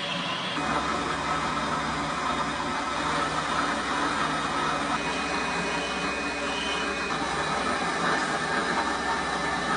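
A power tool running steadily with an even, unbroken noise.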